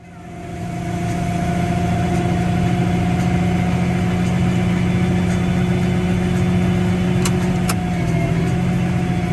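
Tractor engine running at a steady speed while it pulls and unloads a grain cart into a truck, with a steady hum that fades up over the first second. Two sharp clicks come near the end.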